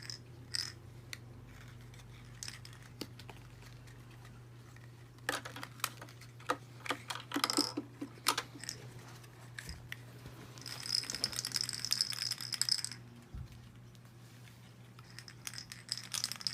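Small plastic toy ice cubes clattering and clinking together as they are handled and dropped, in several bursts of rapid clicks.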